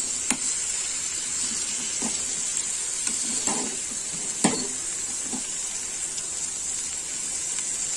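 Cut green beans and potato pieces sizzling in oil and masala in a kadhai, stirred with a spatula that scrapes and knocks against the pan several times. The sharpest knock comes about four and a half seconds in.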